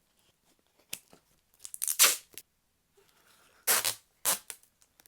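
Gift-wrapping material being torn: three short rips, the longest and loudest about two seconds in, the last a brief one near the end.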